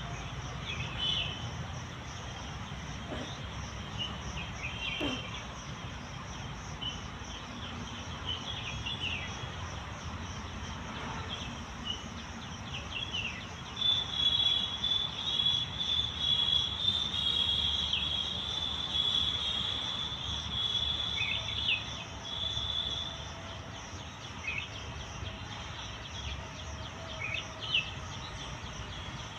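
Outdoor garden ambience: a steady high insect drone with scattered short bird chirps. A louder, high trill runs for about nine seconds in the middle.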